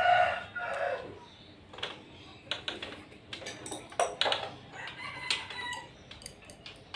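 A rooster crows, the loudest sound, with its call dying away about a second in. It is followed by a string of sharp clicks and taps from hand work on the air conditioner's refrigerant pipe fitting.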